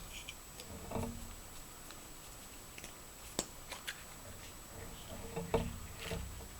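Handling noises from opening a Kinder Surprise egg: a couple of soft thumps and a few sharp clicks, the clicks bunched together about three and a half seconds in.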